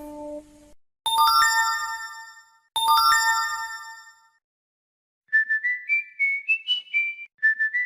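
Phone notification tones. First a bright chime of quickly rising notes sounds twice, each ringing away. About five seconds in, a whistled tune of short notes stepping upward starts, and begins its phrase again near the end.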